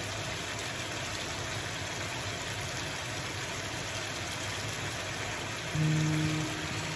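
Chicken breast pieces simmering in sauce in a frying pan on a gas hob, a steady sizzle. About six seconds in, low held tones come in over it.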